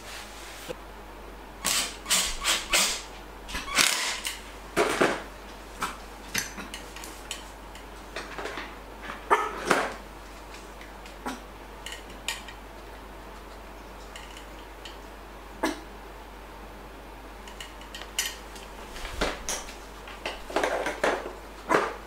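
A dog barking in short, scattered barks, mixed with sharp clicks and clatters as a plastic pet carrier and a metal hook latch on a wooden door are handled.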